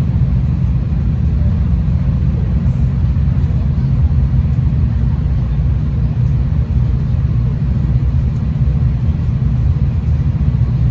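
Steady low rumble of a V/Line passenger train in motion, heard from inside the carriage.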